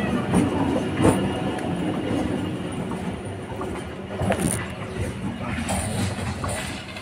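Electric suburban local train running past on the rails and moving away, its wheels clacking over the rail joints with a few sharp knocks, the rumble slowly fading.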